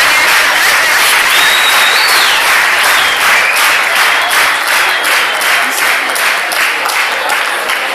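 Audience applauding steadily in a large hall, the clapping falling into a rough shared rhythm in the second half. A thin high tone wavers over it for a few seconds.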